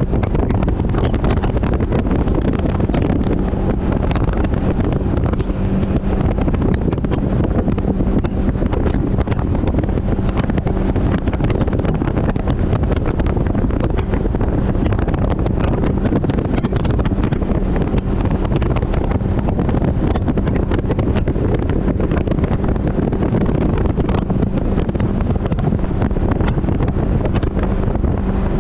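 Mercury 80 Jet outboard on a jet boat running steadily under way, a loud even drone with no change in speed. Heavy wind buffets the microphone over it.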